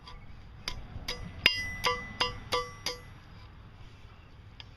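Hammer blows on hot square steel bar stock over a railroad-track anvil, about seven ringing strikes at roughly three a second, then the hammering stops; the blows shape the hook's lower bend so it slopes toward the wall.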